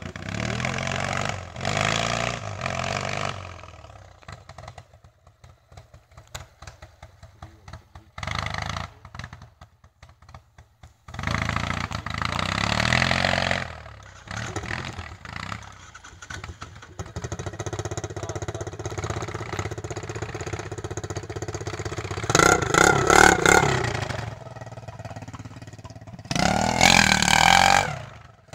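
Quad bike (ATV) engine revving in repeated bursts as it is ridden over rough dirt. Between the bursts it drops back to a faint run, and the loudest revving comes near the end.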